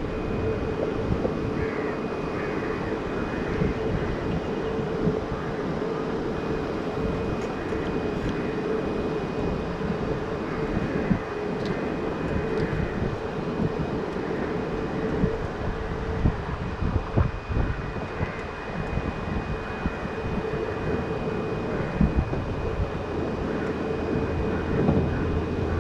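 A steady mechanical hum with a constant mid-pitched tone and a faint, constant high whine, unchanging throughout, with a few small ticks.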